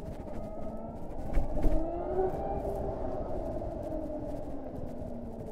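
Harley-Davidson LiveWire's electric motor whining over wind noise while riding. The pitch rises as the bike speeds up about two seconds in, then slowly falls. A low thump comes about a second and a half in.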